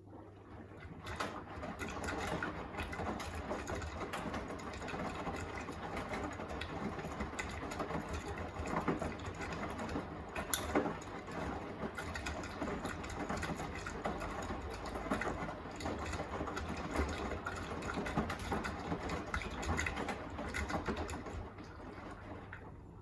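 Beko WTK104121A washing machine's drum turning during the wash: a steady motor hum with dense rattling and clatter from the tumbling load. It starts about a second in and stops near the end, typical of one wash rotation.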